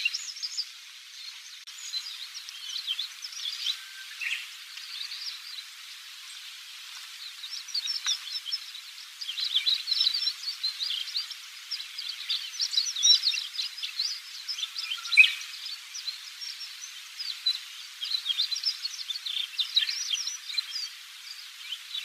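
Male chestnut bunting giving subsong: a rambling, unstructured run of short twittering chirps, over a steady hiss.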